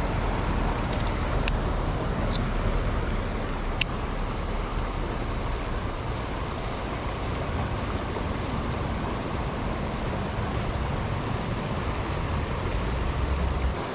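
Steady rushing noise of river current, with a couple of sharp ticks in the first few seconds.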